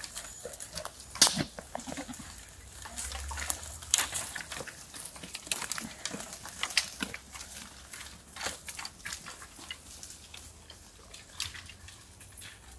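Dry twigs and leaf litter crackling and snapping underfoot as goats and a walker move through brushy undergrowth, in many scattered short clicks. A short low goat bleat comes about a second in.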